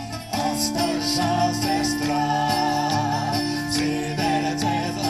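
Live bard song: several acoustic guitars strumming steady chords under a wavering sung melody, amplified through the stage PA.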